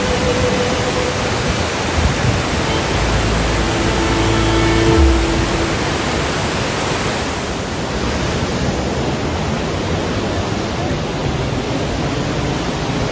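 Kjosfossen waterfall on the Flåm Railway, a loud steady rush of falling water, with a few faint held tones beneath it in the first half.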